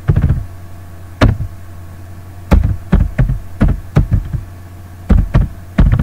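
Computer keyboard keys struck one at a time, irregular dull knocks a few per second with short pauses between runs, over a steady low hum.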